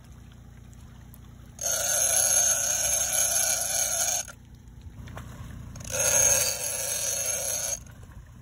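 Large overhead game-fishing reel buzzing in two spells of two to three seconds each while a hooked shark is being fought, over a low steady rumble.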